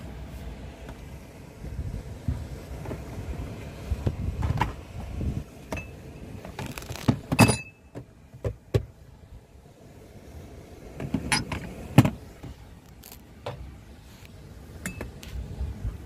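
Camp cooking gear and plastic food containers being handled: a string of clicks, knocks and clinks, the loudest a ringing clink about halfway through and a knock a little later, over a low steady rumble.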